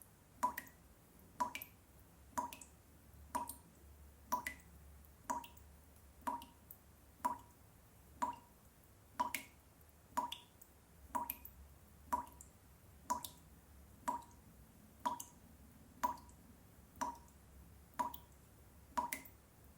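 Water dripping from a tap, one drop about every second in an even rhythm, each landing with a short ringing plink, over a faint low hum.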